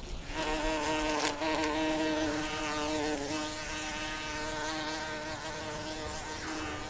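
A bee buzzing in a steady, even drone that starts abruptly, with a brief dip in pitch about three seconds in.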